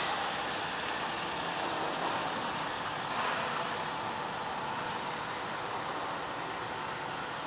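Fire engine driving slowly past, its diesel engine running steadily, with no siren sounding.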